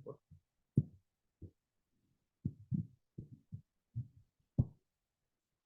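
Soft, irregular clicks and taps of a computer keyboard and mouse as offset values are keyed into CNC simulator software, about a dozen strokes with two sharper clicks.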